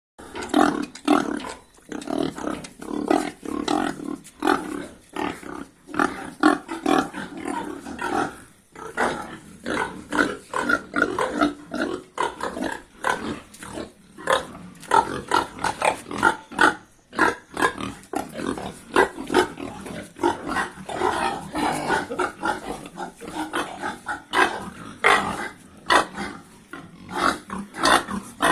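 Yorkshire gilts grunting, a dense unbroken run of short grunts.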